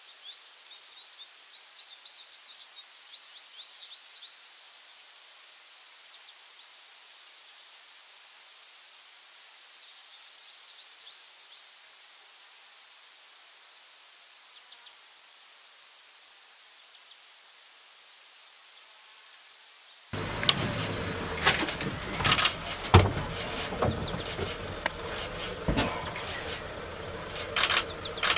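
Steady high-pitched insect trill with a faint pulsing tone above it and a few faint chirps. About twenty seconds in, it cuts abruptly to a louder, rougher outdoor recording with several sharp knocks and thumps.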